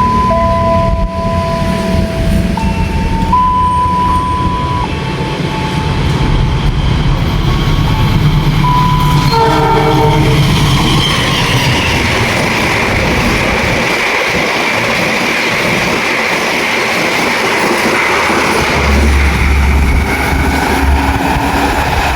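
A train passing a level crossing. Its locomotive horn sounds in held tones over the first few seconds and gives a short blast about ten seconds in. The train then rolls by with a steady rushing noise.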